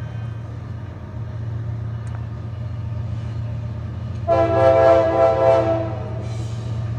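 Nathan K5LA five-chime air horn on a GE ES44AH diesel locomotive sounding one blast of under two seconds, starting about four seconds in. Under it the locomotive's engine runs with a steady low rumble.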